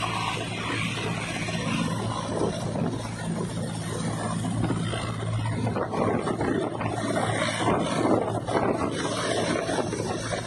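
Military transport helicopter running on the ground with its main rotor turning: a steady engine and rotor hum with a constant rush of blade and turbine noise, becoming rougher and more uneven about halfway through.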